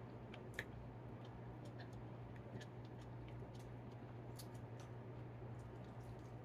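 Mouth sounds of eating steak, picked up close: scattered soft clicks and smacks of chewing, one a little sharper about half a second in, over a steady low hum.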